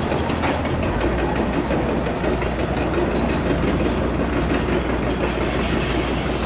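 A train rolling along its track, wheels clattering steadily under a low rumble, with a thin high squeal coming and going.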